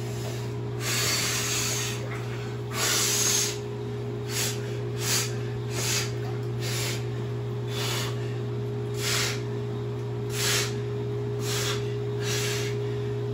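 Water sloshing as a man lowers himself into a cold plunge tub of about 52 °F water. Then short, sharp breaths roughly once a second as he takes the cold. Under it all, the tub's half-horsepower chiller and pump run with a steady hum.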